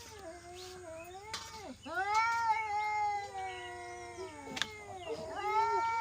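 Domestic cat yowling in long, drawn-out, wavering calls, three in a row; the middle one is the loudest and falls away at its end.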